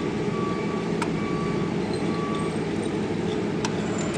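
Automatic welding machine running with a steady mechanical hum. A thin high whine comes and goes in the first half, and there are a couple of light clicks.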